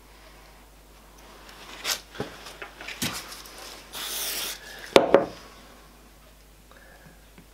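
Short hiss of an aerosol CA-glue activator sprayed onto a small glued wood piece, about four seconds in, after a few light taps and clicks of handling. A moment later comes a sharp knock, the loudest sound, as the spray can is set down on the wooden bench.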